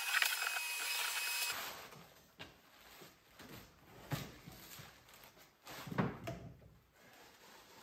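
Shop vacuum running with a steady whine, switched off about a second and a half in. Then a few knocks and rustles as its hose is handled and stowed, the loudest about six seconds in.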